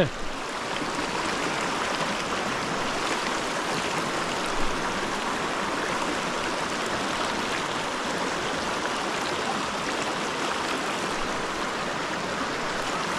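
River water rushing steadily over rocky riffles and small rapids.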